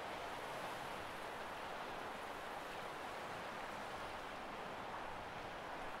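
Steady, even outdoor background hiss of an open tidal shore, with no distinct events.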